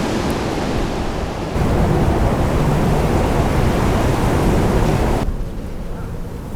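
Wind buffeting the microphone: a steady rushing noise with a low rumble, growing stronger a second or so in, then easing and turning duller about five seconds in.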